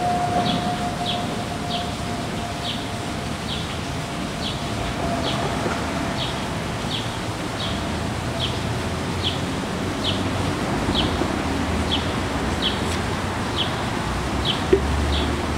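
Outdoor street ambience: a short, high, falling chirp repeats evenly a little more than once a second over a low traffic rumble. A steady tone fades out in the first half, and there is a single sharp click near the end.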